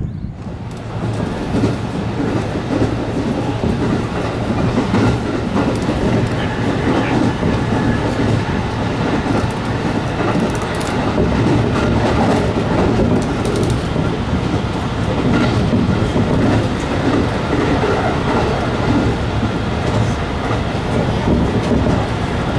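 Riding inside a moving electric train: a steady running rumble and hiss of wheels on rail, with now and then a sharp click as the wheels pass over rail joints.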